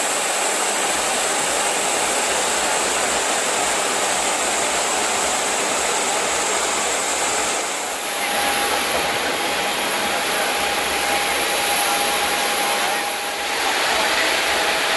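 Steady, loud jet-like rushing hiss with a faint high whine from a parked airliner's running machinery. It shifts slightly about eight seconds in and again near the end.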